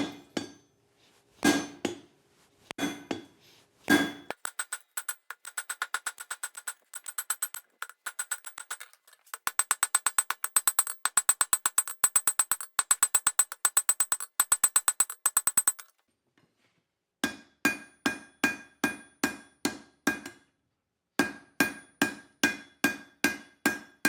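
Blacksmith's hand hammer striking a leaf-spring steel bar on an anvil, with the metal ringing after each blow, to set down the first shoulder of the tongs' boss. A few heavy blows open, then comes a long run of quick lighter blows, a brief break, and steady strikes about three a second.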